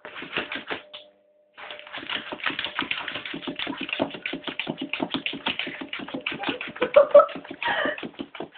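Staffordshire bull terrier clawing frantically at a door, a fast rapid run of scratches many a second, broken briefly about a second in. Near the end come a few short cries from the dog over the scratching.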